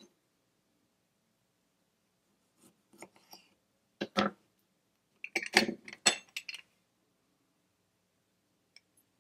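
Bar tools and glassware clinking and knocking in a few short clusters, loudest about four and five-and-a-half seconds in, as a lime and its juice are readied for a cocktail.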